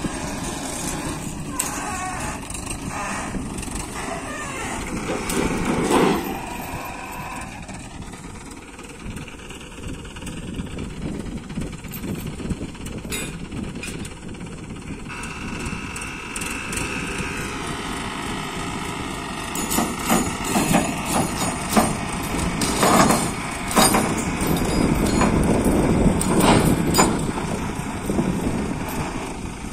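Diesel engine of an ACE mobile crane running steadily while steel rails are handled, with several sharp knocks: one about six seconds in and a cluster in the last third.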